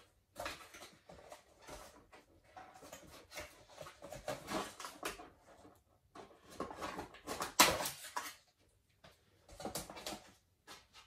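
Packaging and parts being handled: irregular rustling and crinkling in bursts, with one sharp, loud crackle about seven and a half seconds in.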